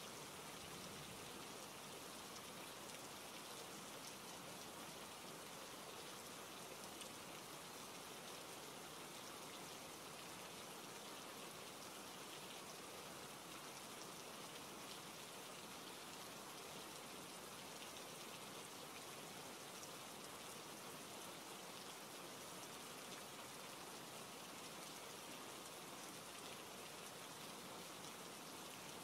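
Steady, soft rain: an even hiss of falling rain that keeps on without change.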